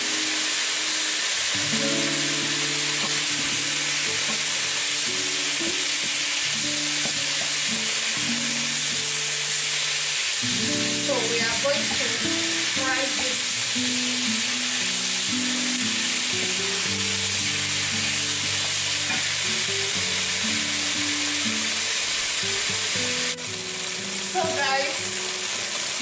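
Chicken breast pieces and sliced onions sizzling steadily in a frying pan in coconut oil, being stirred and turned with a wooden spoon. Background music plays throughout.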